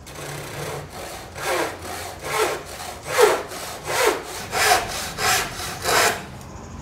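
Handsaw cutting through a wooden board to take off a corner, in even back-and-forth strokes. The strokes start light, then come strong at about one and a half a second, and stop shortly before the end.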